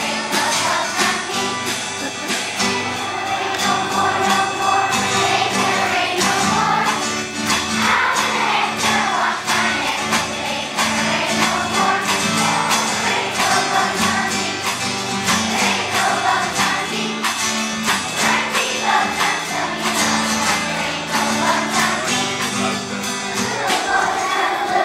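A group of children singing a song together, with a strummed guitar keeping a steady, even beat.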